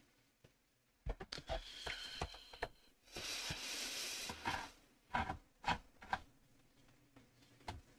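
Faint scattered clicks and taps from a computer keyboard and mouse in use, with a soft rustling hiss lasting about a second and a half a few seconds in.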